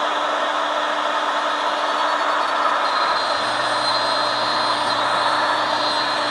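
CNC wood router spindle running steadily while its fine 3D carving bit cuts a relief into a wooden board. A thin high tone joins the steady hiss about three seconds in.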